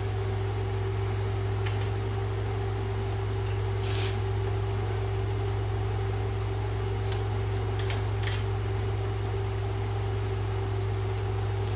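Steady electric hum of a shop fan running, with a few faint clicks of metal suspension parts being handled.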